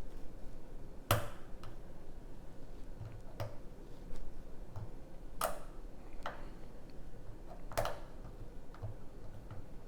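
Lock pick working the pins of a six-pin pin-tumbler lock cylinder: faint light ticks, with four sharper metal clicks about two seconds apart.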